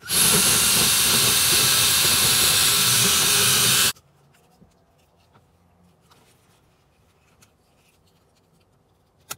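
Cordless drill spinning a rotary grinding bit, grinding out the plastic switch slot in a dash panel to widen it. A steady high whine with grinding noise, cutting off about four seconds in.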